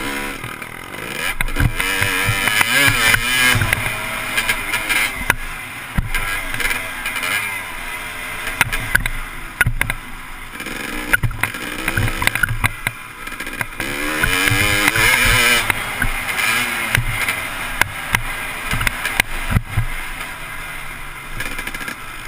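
Dirt bike engine ridden hard around a motocross track, its pitch climbing and dropping again and again as the rider accelerates and shifts, heard through a helmet-mounted camera along with frequent knocks from the bumps.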